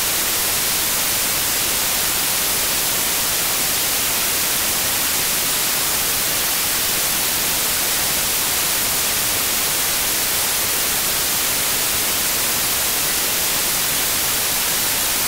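Loud, steady static hiss like white noise, unchanging and brightest in the high end.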